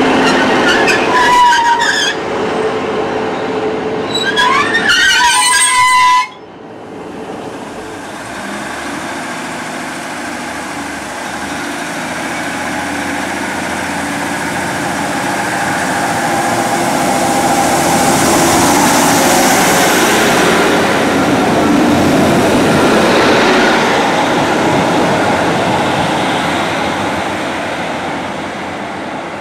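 A Northern diesel multiple unit running close by, with two short high wheel squeals, then an abrupt change to Class 150 Sprinter 150102. The Sprinter's underfloor diesel engines and wheels grow steadily louder to a peak about two-thirds of the way through, then fade as it moves away.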